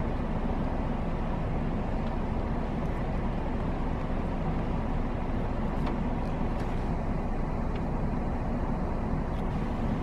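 A steady low engine rumble, with a few faint clicks about six seconds in.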